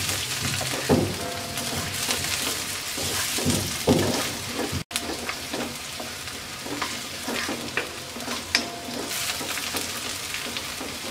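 Chopped onion, ginger, green chillies and curry leaves sizzling in hot oil in a steel wok, stirred with a wooden spatula that scrapes the pan in repeated strokes. The sound cuts out for an instant about five seconds in.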